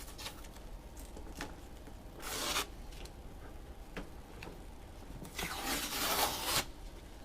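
Automotive masking tape being peeled off a plastic headlight, two longer tearing rips, the second one longer, with small crackles and ticks between.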